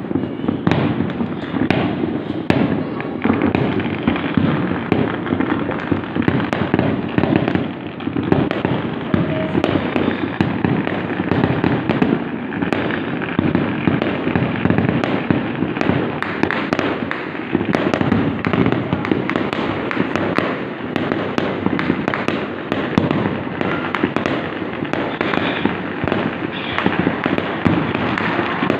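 Chinese New Year fireworks going off in a dense, unbroken barrage of bangs and crackles.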